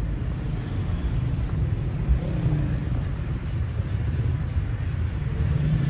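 Steady low rumble of street traffic. A thin, high chirping tone comes in about three seconds in and lasts a second or so.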